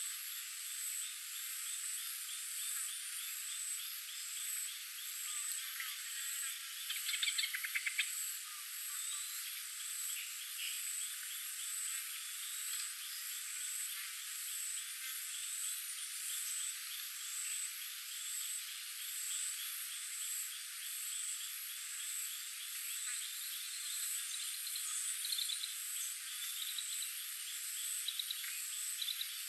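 Forest ambience of calling insects and frogs: a steady, high, pulsing insect drone over a fast ticking chorus, with a brief louder run of clicks about seven seconds in.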